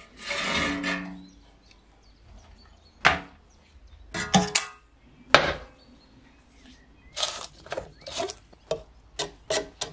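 Metal stove parts handled on a wooden workbench: a scraping drag about a second long at the start, then separate knocks and clinks. Near the end comes a run of short clicks as a plastic screw cap is twisted on a metal can.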